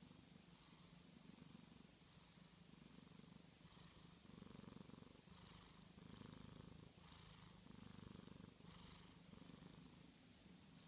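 Domestic cat purring quietly: a low rumble that swells and eases with each breath, about once a second, loudest in the middle.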